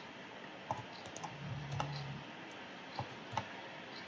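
Computer mouse clicking a handful of times at uneven intervals, over a low steady hiss, with a faint low hum for under a second near the middle.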